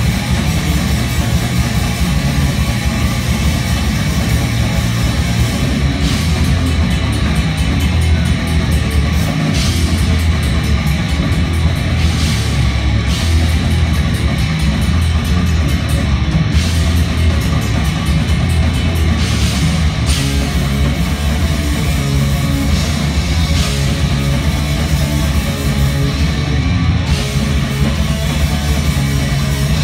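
Crust punk band playing live at full volume: distorted electric guitar and bass over drums, a dense, unbroken wall of sound.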